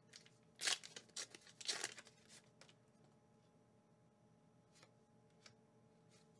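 A small Pokémon promo card pack being torn open in two short rips about a second apart, followed by a few faint clicks as the cards are handled.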